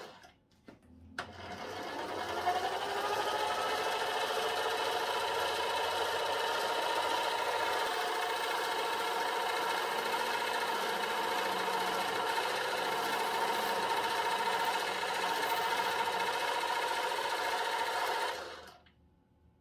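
Small bench metal lathe starting up with a click, its motor and spindle whine rising in pitch as it comes up to speed. It then runs steadily while a cut-off tool parts a small metal standoff from the bar stock, and shuts off near the end.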